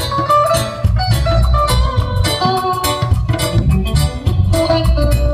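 Live gospel band playing an upbeat dance groove through PA loudspeakers, with drums, bass, guitar and organ-like keyboard.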